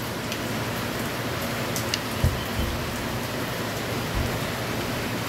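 Steady hiss of rain falling, with a couple of soft low thumps about two and four seconds in.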